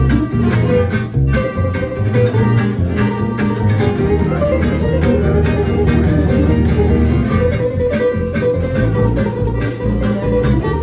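Acoustic string band playing an up-tempo swing tune: fiddle bowing the melody over two acoustic guitars strumming a steady rhythm and an upright bass.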